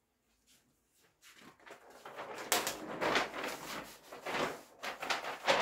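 Large flip-chart paper sheets rustling and crackling as pages are lifted and flipped over the top of the pad, starting about a second in and coming in several crinkly bursts.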